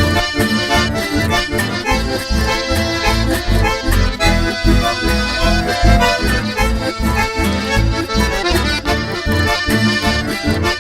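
Chamamé accordion leading an instrumental passage between sung verses, over a steady bass beat.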